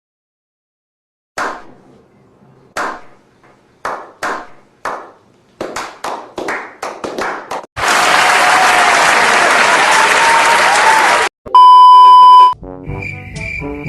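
A slow clap that speeds up, then loud applause and cheering for about three seconds, cut off by a short steady beep.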